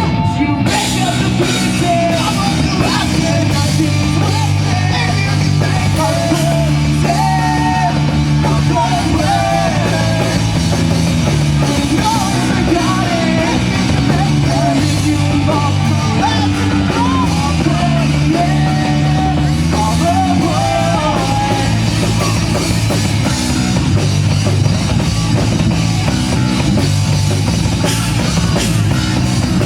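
Live rock band playing loud, with drum kit and bass under a wavering lead melody that carries through the first twenty seconds or so.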